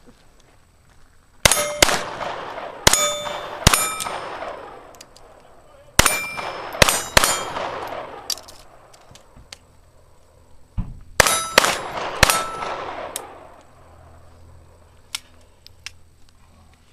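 Pistol fire in three quick strings with pauses between them. Each shot is answered by the clang of a steel target ringing on and fading.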